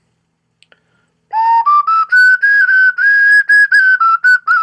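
A 3D-printed resin replica of a ceramic ocarina played as a scale: clear, pure notes separately tongued, starting about a second in and stepping upward, then dipping slightly near the end.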